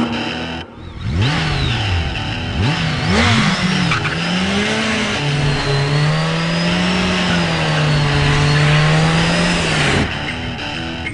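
BMW motorcycle engine revved hard in a burnout, its pitch swooping up and down several times, then held high and steady for about five seconds while the rear tyre spins. Music comes back near the end.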